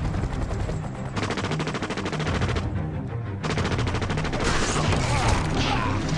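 Two long bursts of rapid automatic gunfire, each lasting a second or more with a short gap between them. They play over a low, steady film score, and a rushing swell of noise builds near the end.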